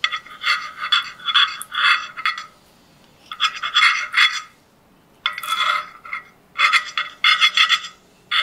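Serrated bread knife sawing through a slice of whole wheat bread with quick back-and-forth rasping strokes, in four runs with short pauses between.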